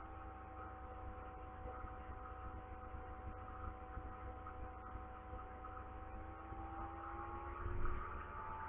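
Steady machine hum: a low drone with several steady tones above it, their pitch sagging slowly and climbing back near the end.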